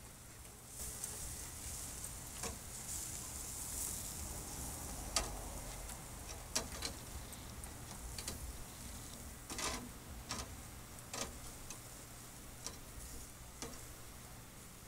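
Lobster tails and vegetables sizzling on a wire grill grate over charcoal, with scattered sharp clicks of metal tongs against the grate as the food is turned.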